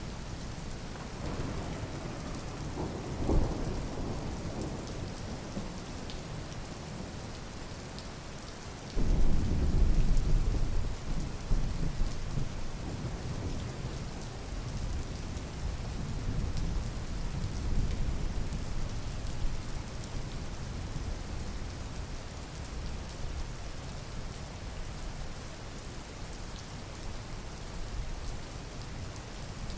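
Steady rain with thunder: a low rumble about two to four seconds in, then a louder clap of thunder about nine seconds in that rumbles away over several seconds.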